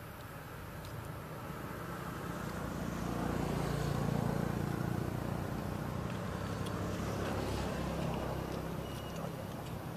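A motor vehicle's engine passing by, a low hum that swells to its loudest about four seconds in and then slowly fades.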